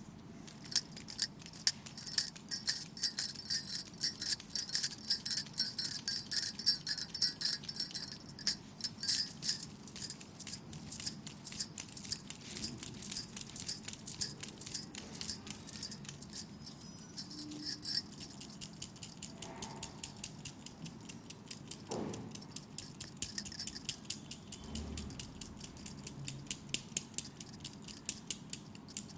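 Rapid metallic clicking and jingling, dense and ringing for about the first ten seconds, then lighter, scattered clicks.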